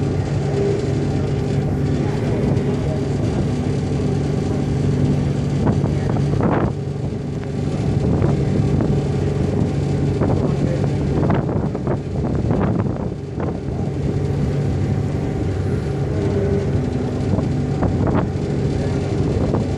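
Ferry engine running steadily as a low, even hum, under the rushing of the wake and wind, with a few brief louder rushes around the middle.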